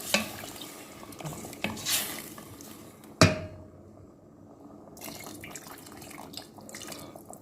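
Water running and splashing into a cooking pot, with small clinks. About three seconds in there is one sharp metallic clank with a brief ring, the loudest sound.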